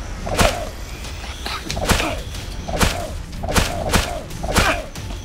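A series of sharp whip-like hits with whooshes, about one a second, each followed by a short tone that bends downward in pitch.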